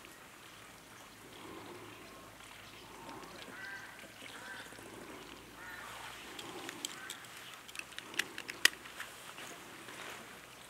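Ring-tailed lemurs giving short calls, several in quick succession around the middle. A few sharp clicks come about two-thirds of the way in, and the last of them is the loudest sound.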